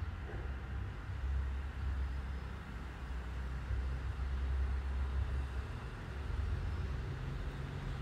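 A low, steady background rumble with no distinct events, of the kind that passing road traffic makes.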